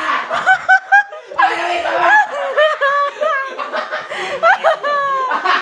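People laughing in short, high-pitched bursts.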